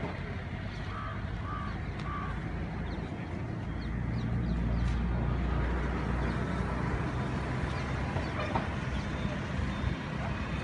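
Outdoor ambience: a steady low rumble that swells about four seconds in, with three short bird chirps in the first two seconds and faint voices.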